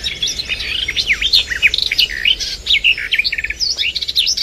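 A chorus of small birds chirping and twittering, many short calls overlapping in quick succession.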